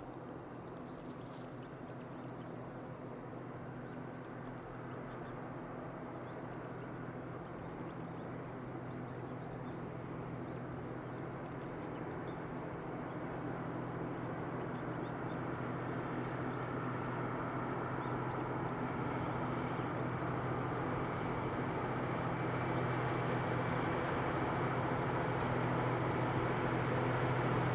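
A DF200 diesel locomotive hauling a freight train approaches, its engine drone growing steadily louder. Small birds chirp in the background.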